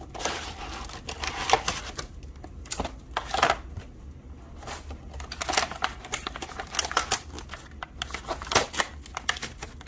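Cardboard toy box being opened and its clear plastic blister tray handled and lifted out: irregular clicks, taps and crinkles of plastic and cardboard.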